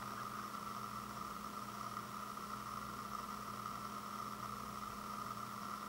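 Room tone: a steady hiss with a constant low hum and no distinct events.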